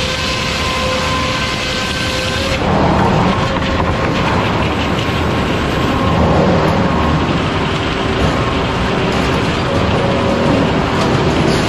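Sawmill machinery running loudly and steadily, the circular head saw spinning with a steady whine. About two and a half seconds in, the noise turns rougher and louder and stays so.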